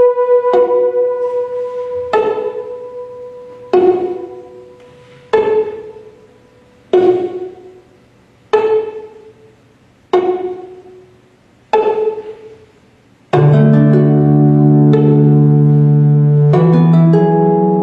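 Instrumental music: single plucked notes about every second and a half, each dying away, then from about 13 seconds in a loud sustained string chord that shifts to a new chord near the end.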